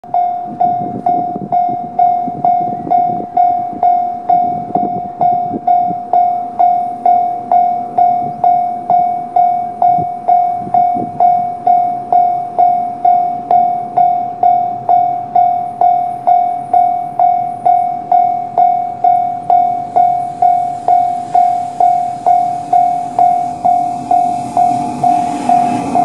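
Japanese level-crossing warning bell ringing at a steady pitch, about two strikes a second. Over the last few seconds the rumble of an approaching freight train led by electric locomotives grows under it.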